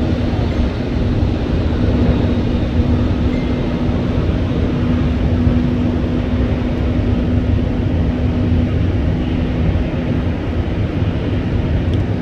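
Steady low rumble of a Boeing 767-300 airliner and its tug during pushback, with a steady hum that fades out about ten seconds in.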